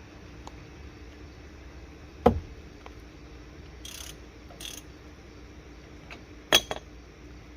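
Two sharp clanks, about four seconds apart, from tools and brake parts being handled during a front brake job, with two short hisses between them over a steady low hum.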